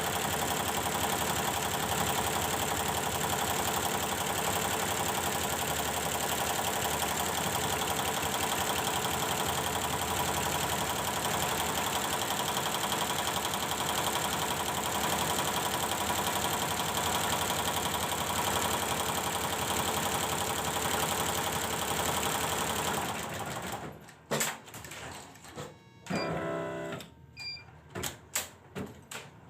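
Computerised embroidery machine stitching steadily on a test run after its power supply was repaired, then stopping abruptly about 23 seconds in. Scattered sharp clicks and a few short beeps follow.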